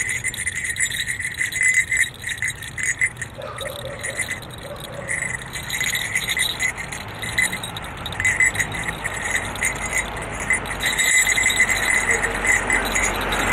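Small jingle bells on the horns of a jester mask jingling in irregular bursts as the wearer walks and moves his head. The jingling thins out for a few seconds about two seconds in, then picks up again.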